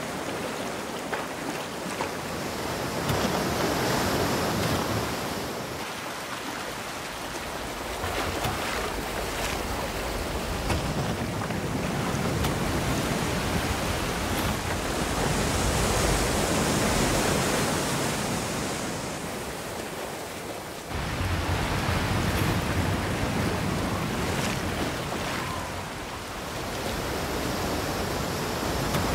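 Whitewater rushing and pouring over waterfalls as one continuous noise. Its level and tone shift now and then, and it jumps up suddenly about two thirds of the way through.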